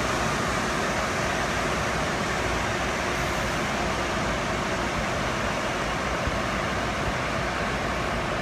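Excavators running together in a steady, unbroken mechanical noise, with no single engine note or distinct event standing out.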